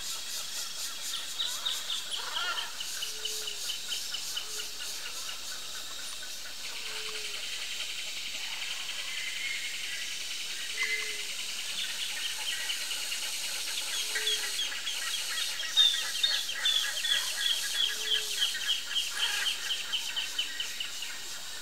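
Wild birds calling: rapid series of short high notes that step down in pitch, twice, with a short low note repeated every few seconds, over a steady high buzz that comes in about a third of the way through.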